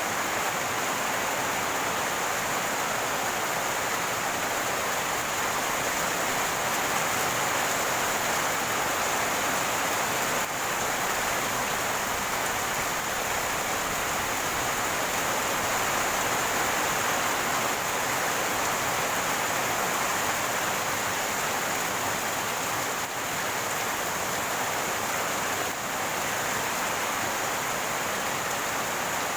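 Rainwater running and gurgling in a steady, unbroken rush.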